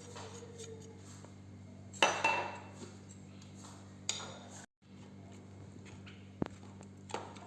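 A spoon knocking and clinking against a mixing bowl while ingredients are added, loudest about two seconds in, with a few lighter clinks after. The sound cuts out completely for a moment near the middle.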